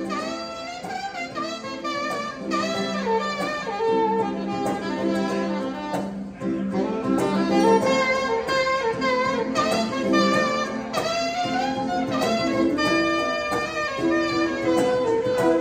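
Live saxophone playing a jazzy, gliding melody, with a small acoustic guitar accompanying underneath.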